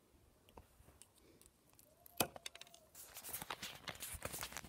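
Dog nail clippers snipping through a thin wooden barbecue skewer: one sharp snap about two seconds in, followed by a few small ticks. The snap is much like the sound of clipping a dog's nails. A rustle of handling noise follows near the end.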